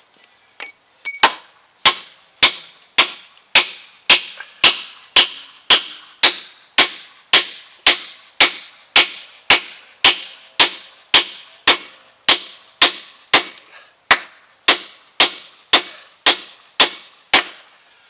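A 16-ounce claw hammer driving an 8-inch steel log spike into a wooden beam through a pilot hole: about thirty sharp, ringing blows at a steady pace of a little under two a second.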